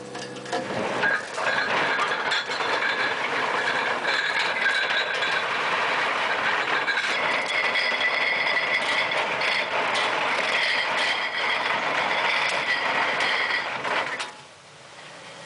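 Heavy anchor chain running out fast across a steel deck and over the side, a continuous rattling and clanking of links dragging on steel with high ringing scraping tones. It builds up within the first second or so and cuts off sharply about fourteen seconds in as the last of the chain goes overboard.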